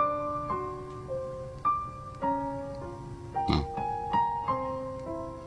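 Soft piano background music, slow held notes played one after another.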